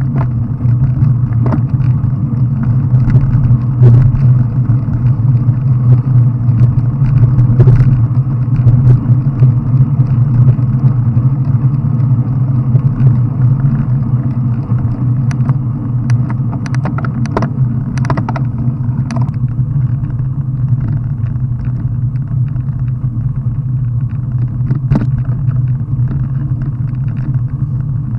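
Steady low rumble of wind and road noise picked up by a camera riding on a bicycle over wet tarmac, with scattered short clicks and knocks from bumps along the way.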